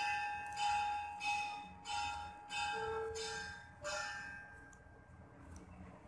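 A run of about seven bell-like chime strikes, a little under two a second, each ringing on and fading, with the notes changing pitch like a short tune.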